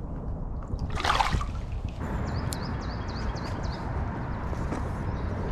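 River water sloshing at the bank, with a short splash about a second in.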